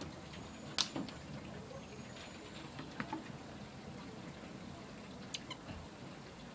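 Common marmoset on a person's shoulder: faint, high, thin whistling calls and scattered small clicks and taps, the sharpest about a second in.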